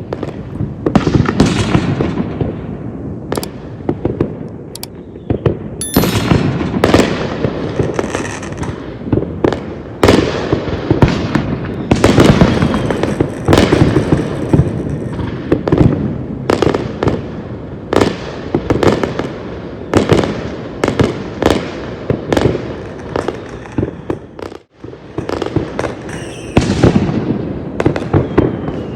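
New Year's Eve fireworks going off all around: a dense, unbroken run of bangs and crackling, with a brief lull about three-quarters of the way through.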